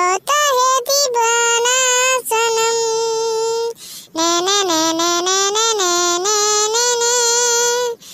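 A high-pitched female cartoon voice singing a melody unaccompanied, in long held notes with a wavering pitch, broken by short pauses about two seconds in and again around four seconds.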